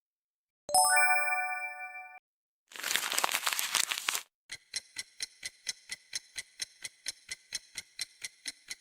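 Three short stock sound effects in a row: a bright chime that rings and fades, then a crackling burst lasting about a second and a half, then a steady run of sharp ticks about three a second, like a clock.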